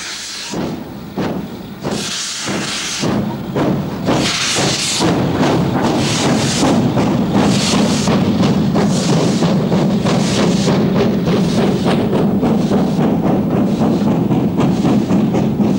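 GWR Manor-class 4-6-0 steam locomotive with two outside cylinders, working hard as it gets its train moving. Its exhaust beats start slow and separate, with loud bursts of steam hiss from the cylinder drain cocks in the first few seconds. The beats then quicken until they run together into a fast, steady chuffing.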